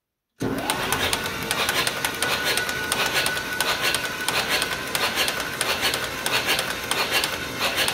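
Electric starter cranking a 1949 John Deere B's two-cylinder engine with the spark plugs out, a steady fast-ticking whir with a faint whine, starting abruptly about half a second in. The engine is being turned over to build oil pressure and fill the oil filter before its first start after a rebuild.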